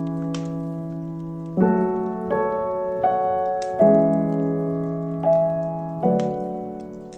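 Slow solo piano playing soft classical music: chords struck every second or so, each left to ring and fade. A few faint crackles of a fireplace sound under it.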